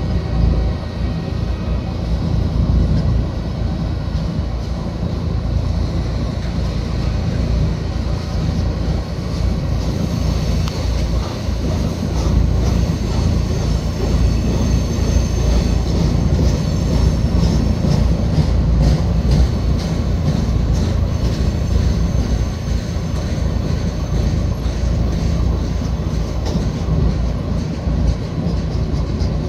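Freight train of loaded flatcars rolling steadily past, a continuous rumble of wheels on rail. A faint high-pitched ringing comes and goes through the middle.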